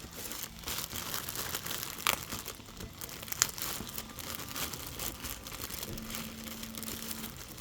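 Packaging crinkling and rustling as it is opened by hand, in irregular crackly bursts with a few sharper tearing sounds.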